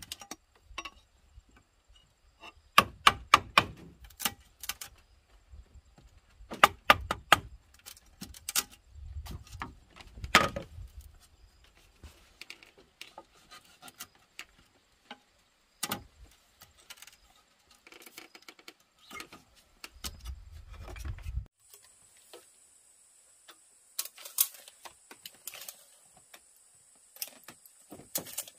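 Sharp knocks of a tool striking bamboo, in short clusters of several strikes with pauses between. A steady high-pitched buzz comes in about three-quarters of the way through.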